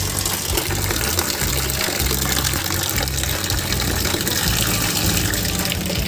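Steady rush of running water, like a tap gushing, which cuts off suddenly at the end.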